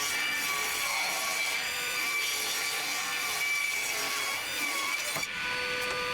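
Table saw with a 24-tooth rip blade ripping dark oak boards lengthwise: a steady motor whine with the blade's sawing noise in the wood, broken briefly just after five seconds in.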